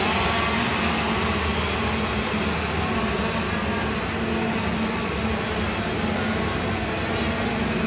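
Several two-stroke chainsaws running at once: a steady, loud mass of engine noise.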